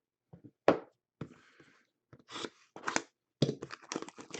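Trading cards and their plastic packaging being handled: a string of sharp clicks and crackles with short rustles between them, growing busier in the last second.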